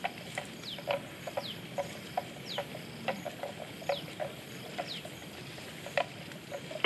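Outdoor animal ambience: a bird gives short, high, downward-sliding calls about once a second over many irregular short clicks.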